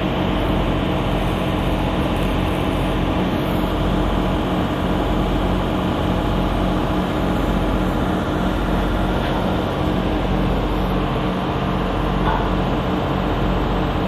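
Steady hum of running industrial plant machinery: a few constant low tones over an even rushing noise, unchanging throughout.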